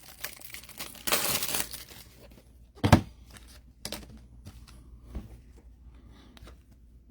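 A trading-card pack wrapper being torn open and crinkled, with a short tearing rustle about a second in. A sharp knock near three seconds in and a few lighter taps follow as the cards are handled.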